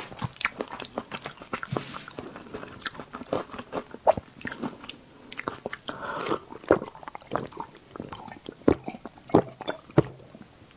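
Close-miked eating sounds: chewing with sharp, wet mouth clicks, then sips and gulps from a glass of drink in the second half.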